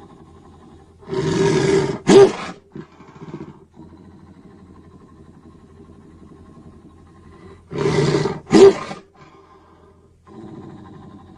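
Creature roar sound effect, heard twice: each time a breathy roar about a second long breaks into a shorter, louder cry, with a low rumbling growl underneath between the roars.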